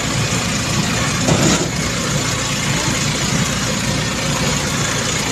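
Steady engine and road noise of a moving vehicle, heard from on board, with a brief louder swell about a second and a half in.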